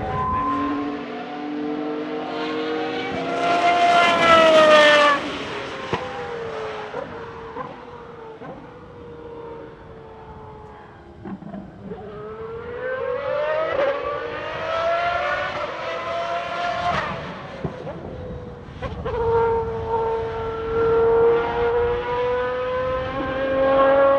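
The 6.0-litre V12 of a Lola-Aston Martin B09/60 LMP1 racing car at speed. It climbs in pitch to its loudest about five seconds in and breaks off sharply, sags away, then climbs again through the middle and drops sharply. Near the end it holds a steady high note.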